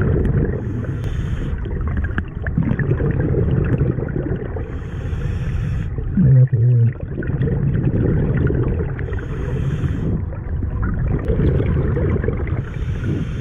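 Scuba diver breathing through a regulator underwater: a hiss on each inhale about every four seconds over the constant low rumble and gurgle of exhaled bubbles, with a short loud hum about halfway through.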